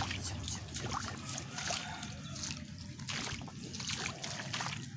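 Rainwater runoff flowing in a shallow sheet over a flooded lane, trickling, with small irregular splashes.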